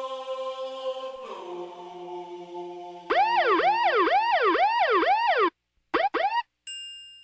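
Intro soundtrack effects: a held chant-like chord, then a siren-like wail sweeping up and down about twice a second. About two and a half seconds in, the wail cuts off suddenly, followed by a couple of short stuttered snatches of it and a brief steady high tone.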